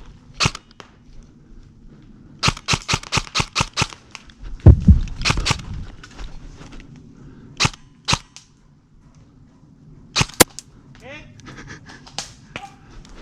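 Airsoft guns firing: a single shot, then a quick string of about eight shots, followed by scattered single shots.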